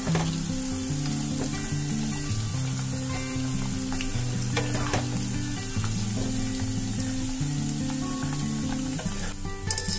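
Hot oil sizzling steadily as tempe strips finish deep-frying and are lifted out with a wire spider strainer. Soft background music plays under it.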